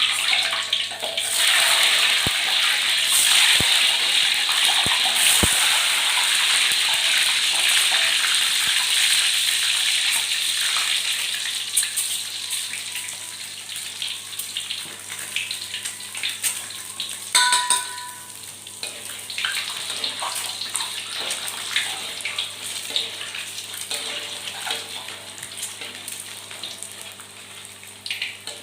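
Food frying in hot oil: a loud sizzle that bursts in at once as the food hits the oil, then slowly dies down as it cooks, with scattered crackles and pops.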